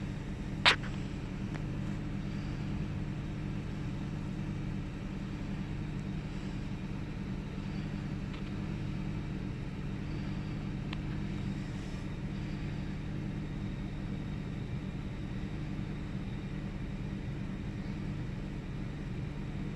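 1998 Ford Taurus SE's 3.0-litre OHV V6 idling steadily, with one sharp click less than a second in.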